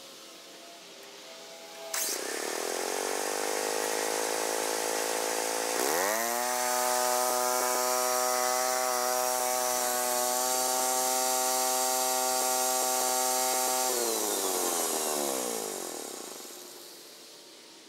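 Allis-Chalmers 410 garden tractor with a rear rototiller: about two seconds in the machine comes up with a sudden rise into a whine, steps up higher a few seconds later and holds a steady high whine, then winds down in pitch and fades near the end.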